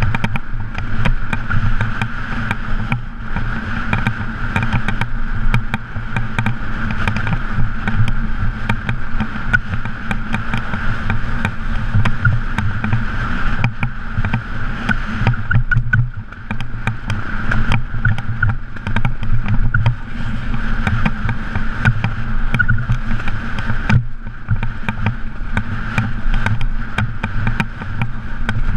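KTM off-road motorcycle engine running steadily as the bike rides over a loose stony track, with a constant clatter of small clicks and knocks from the rough ground. The engine note dips briefly twice.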